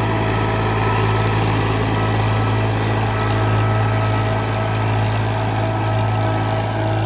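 Diesel tractor engine running steadily under load while it pulls a rotary tiller (rotavator) through dry, ploughed soil.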